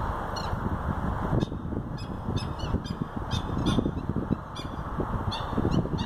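Black-winged stilt calling: a run of short, sharp notes, several a second from about a second and a half in, over a steady low rumble.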